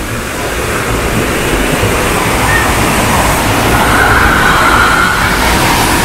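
Rushing stream water tumbling over boulders in a rapid: a loud, steady rush.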